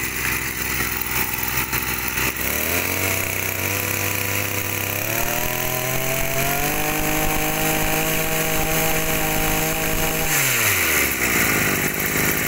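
Stihl FS 2201 two-stroke brush cutter engine, just started and idling. About two seconds in, it is revved up in steps, held at high speed, and then drops back to idle about ten seconds in.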